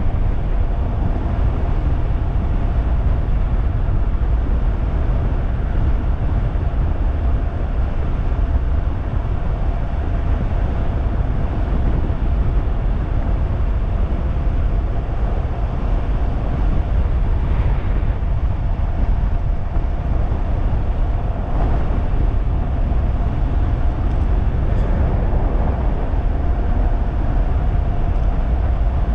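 Steady wind rush and low rumble on the microphone of a 3000-watt DIY e-bike riding fast on pavement, with a thin steady whine running underneath.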